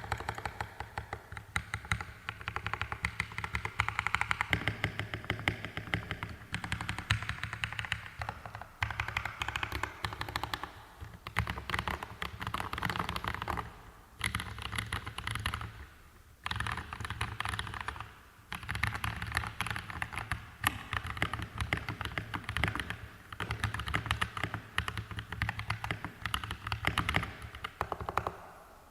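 Continuous fast typing on a mechanical keyboard with lubed YOK Mint Panda tactile switches, GMK keycaps, an aluminum plate and a walnut wood case, with a few brief pauses in the typing.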